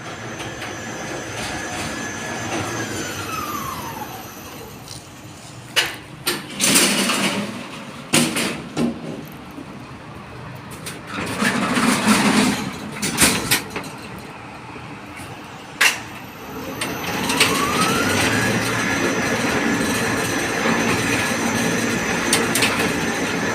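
Construction personnel hoist: its motor whine winds down as the cage stops about four seconds in, then a series of metal clanks and bangs, then the whine rises again as the hoist starts off and runs steadily.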